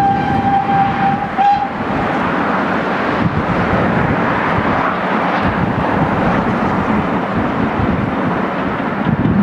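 Steam locomotive hauling a passenger train, its whistle held on one steady note until it stops about a second and a half in, over a continuous rushing noise of the passing train and wind on the microphone.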